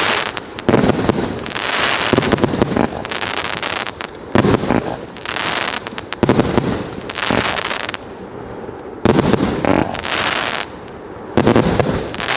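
Blizzard wind gusting hard against the microphone in repeated surges of rumbling, hissing noise, each about a second long, with short lulls between.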